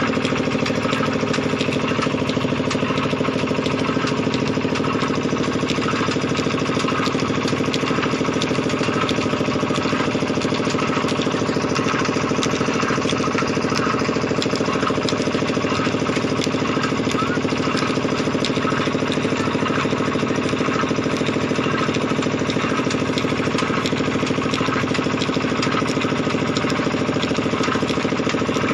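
Small engine running steadily at one constant speed, driving a sugarcane crusher.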